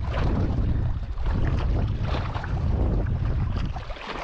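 Wind buffeting the microphone in a steady low rumble, with small waves lapping at the shore underneath.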